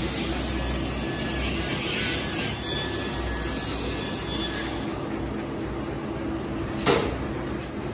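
Electric pet nail grinder running steadily on a dog's nails, cutting off about five seconds in. A single sharp knock follows near the end.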